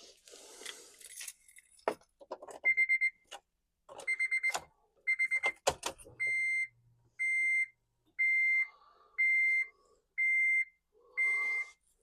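Electronic beeping at one high pitch: a few short stuttering bursts of rapid beeps, then steady half-second beeps about once a second, with a few sharp clicks and knocks in between.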